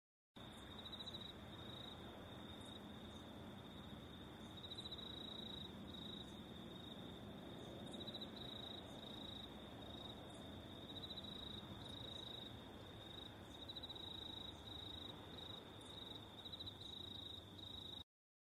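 Field ambience of insects trilling: a continuous high-pitched, finely pulsing chirr with brief dips, over a faint low background rumble. The sound cuts off suddenly near the end.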